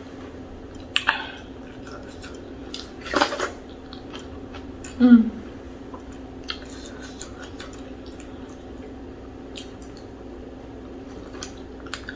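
Eating sounds at a meal: scattered light clicks and clinks of dishes and cutlery, with a few louder short noises about one, three and five seconds in, over a steady low hum.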